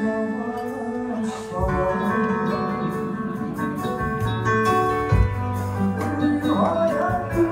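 Live pop band playing with electric guitars and keyboard, many held notes over a low bass line.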